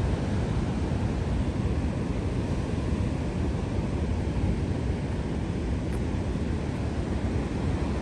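Steady wind noise rumbling on the microphone over a continuous hiss.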